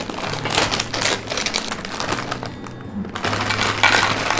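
Background music with the rapid crinkling and clicking of a packet of tapioca chips being unpacked. The crinkling breaks off briefly about two and a half seconds in.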